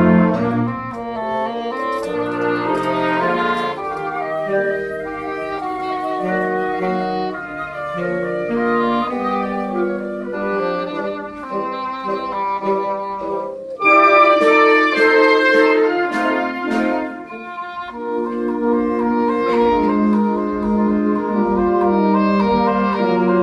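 Symphonic wind band playing held chords with moving melodic lines. After a short break about 14 seconds in, the band comes in louder and fuller for a few seconds, then eases back to a softer level.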